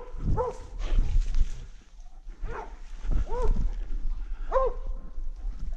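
Bear-hunting dog barking, single barks a second or more apart with two in quick succession near the end. Low thumps and rumble come from the rifle-carrying hunter moving through the forest.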